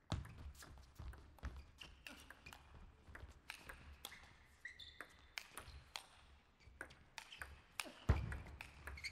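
Table tennis rally: the celluloid ball clicks off the rackets and the table in quick succession, about twice a second. Near the end comes a heavy thud, the loudest sound, as a player lunges into a forehand.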